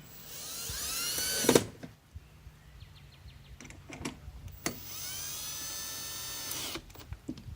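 Cordless drill driving screws back in: two short runs, the motor's whine rising in pitch as it spins up, the first ending in a sharp knock, the second about two seconds long.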